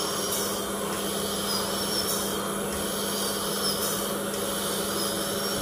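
Dental drill whining at a high pitch that wavers as it works on a tooth, cleaning out the fissures and a small cavity without anaesthesia, over a steady hum and hiss from the dental unit.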